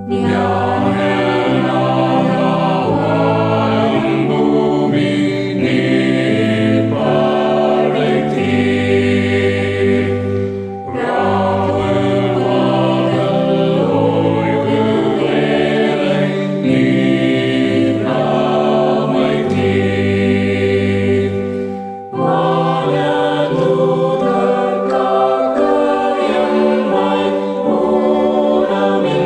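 A mixed choir of men's and women's voices singing a Tamil Christian hymn in long sustained phrases, with short breaks between verses about 11 and 22 seconds in.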